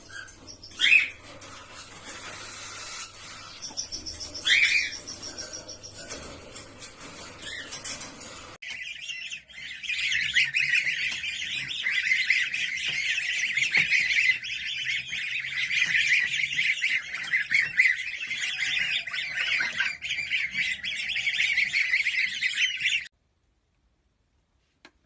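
Birds calling: two short, loud calls in the first few seconds, then dense, continuous high-pitched chirping from many birds that stops abruptly near the end.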